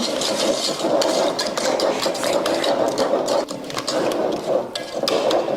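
A thick, lumpy, buttery batter being beaten hard by hand in a bowl: a fast, continuous clatter of the mixing utensil against the bowl, with the wet squelch of the batter.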